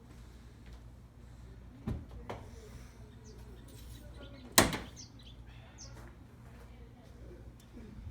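Two clunks from the car's body hardware: a lighter one about two seconds in and a much louder one about two and a half seconds later, over a low steady hum.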